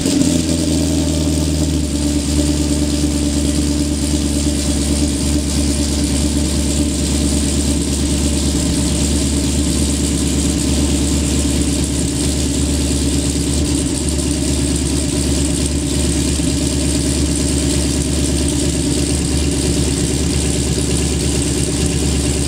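Pontiac GTO V8 with an aftermarket cam and Magnaflow exhaust, idling just after a cold start. The idle changes about two seconds in, then runs steadily.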